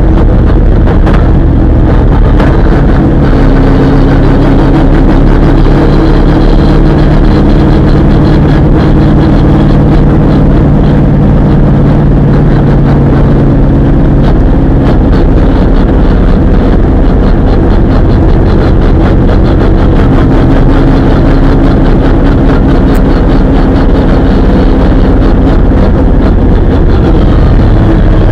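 V8 Supercar race car's V8 engine heard from inside the cabin, very loud. It runs at fairly steady revs and settles to a lower note about halfway through as the car slows.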